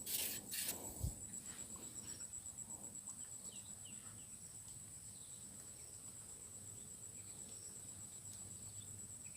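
Faint outdoor ambience: a steady, high-pitched insect drone, with a few short bird chirps and some light clicks in the first second.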